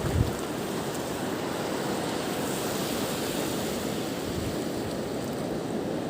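Steady wind and water noise, with wind buffeting the microphone briefly at the start.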